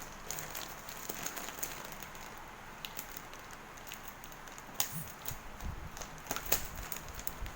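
A plastic-wrapped parcel being handled, with faint crackling and scattered light clicks and a few soft low thumps in the second half.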